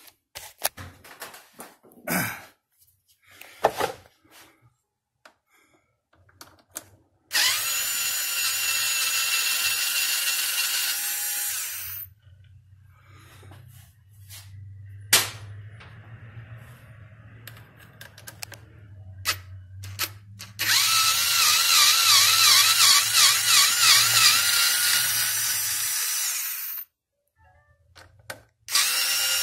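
Cordless power tool with a socket running in several long bursts of high-pitched motor whine, backing out the bolts that hold the throttle body to the intake. A few clicks and knocks of hand tools come before the first burst.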